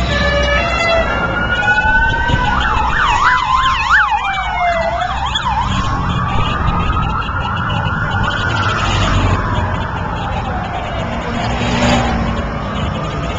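Vehicle sirens sounding as vehicles pass: a slow wail, then a fast yelp for a couple of seconds, then a long slow rise and fall, over the low rumble of engines.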